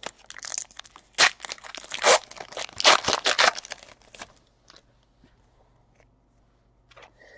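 Foil trading-card pack wrapper being torn open and crinkled: a run of sharp rips and crackles through the first four seconds, with three louder tears about a second apart.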